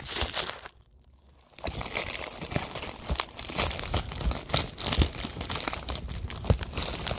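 A thin white bag being crinkled and pulled open by hand: irregular rustling and crackling, with a short near-quiet pause about a second in.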